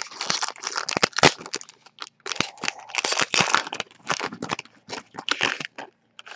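Foil wrapper of a 2018 Panini Impeccable football card pack being torn open and crinkled by hand: a dense run of irregular crackles and crunches with brief pauses.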